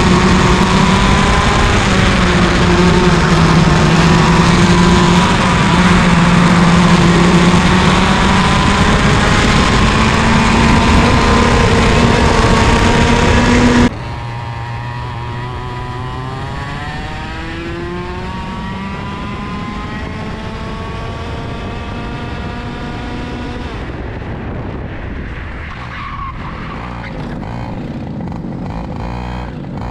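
IAME KA100 two-stroke kart engine running on track, its pitch rising on acceleration and falling as it slows for corners. About halfway in, the sound cuts abruptly to a quieter recording, where the engine climbs steadily in pitch as the kart accelerates.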